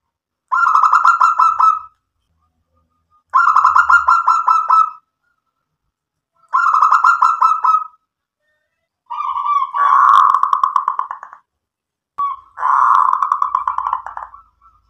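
Zebra dove (perkutut) cooing: five phrases of rapid pulsing coos, about one every three seconds. The last two are harsher and fuller than the first three.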